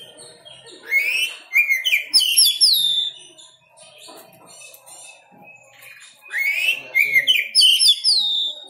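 A caged songbird singing in two loud bursts of quick whistled notes that glide up and down, the first about a second in and the second a little after six seconds in.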